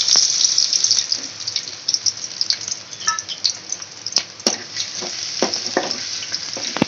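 Chopped ginger and garlic sizzling in hot oil in a metal kadai, loudest at first and easing after about a second. From about halfway on, a spatula scrapes and knocks against the pan several times as it stirs.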